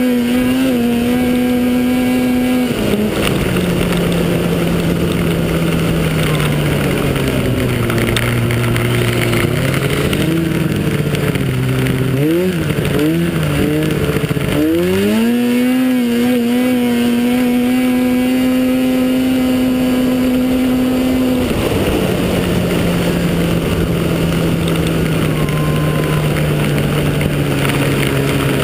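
Racing snowmobile engine heard from on board, running hard under a haze of wind and track noise. The pitch holds high, drops about three seconds in and sinks slowly, wavers up and down with quick throttle changes around twelve to fourteen seconds, climbs back high about fifteen seconds in, and drops again a little after twenty seconds.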